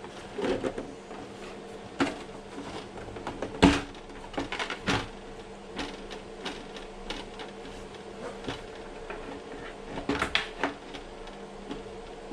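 Scattered plastic clicks and knocks of parts being handled and fitted on an RC monster truck, the sharpest just before four seconds in and a cluster around ten seconds, over a steady low hum.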